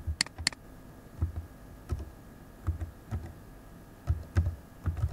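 Keystrokes on a computer keyboard, a few at a time with short pauses, as a date is typed in. Two sharp clicks come just after the start.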